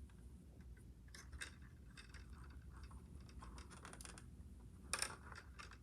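Faint clicks and scratching of a plastic DVD case being handled and worked open, with a sharper click about five seconds in.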